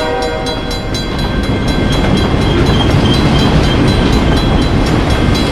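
Cartoon sound effect of a train going by: a train horn's chord dies away in the first half second, then a steady rumble of the train with a rapid clickety-clack of wheels running over rail joints.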